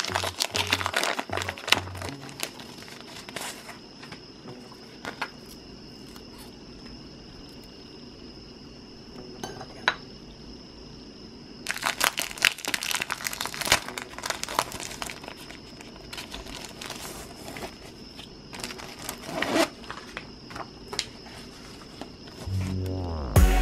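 Glossy sticker sheets crinkling and crackling in the hands while gold letter and heart stickers are peeled off their backing, in short spells near the start, about halfway through and again later.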